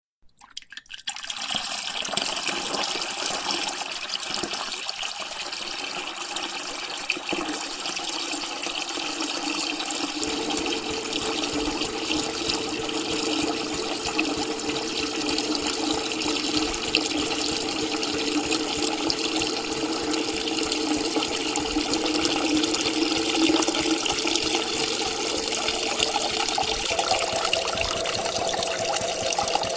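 Water pouring in a steady stream into a filling tank, starting about a second in. A steady tone runs under the splashing, and a higher tone joins near the end.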